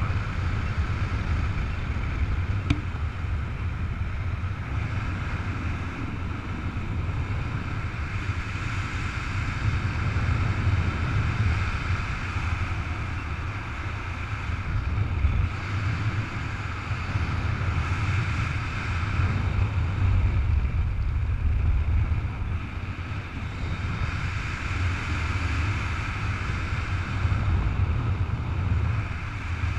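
Airflow buffeting the camera microphone in paraglider flight: a steady low rumble that swells and fades every few seconds, with a hiss of rushing air over it.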